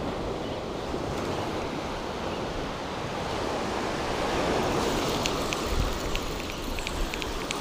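Surf washing up on a beach with wind buffeting the microphone, swelling a little about halfway through. A few faint high ticks come in the second half.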